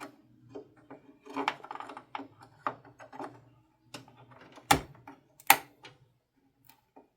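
Small plastic and metal clicks, taps and scrapes of a DDR4 RAM stick being handled and fitted into the memory slot of a Dell OptiPlex 7050 desktop, with two louder sharp clicks a little under a second apart past the middle.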